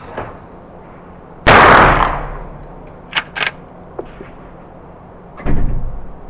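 A. Uberti 1873 lever-action Sporting Rifle firing a loud shot about a second and a half in, the report ringing out. Then come two quick sharp metallic clicks as the lever is worked to eject and chamber the next round. A second, duller bang follows near the end.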